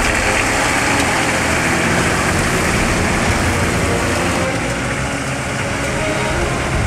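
Off-road 4x4 engine running as the vehicle drives into a shallow river, with water splashing and churning around its wheels.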